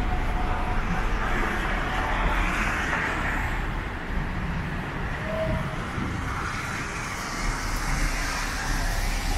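City street traffic: cars passing with a steady low rumble and tyre noise that swells and fades as vehicles go by.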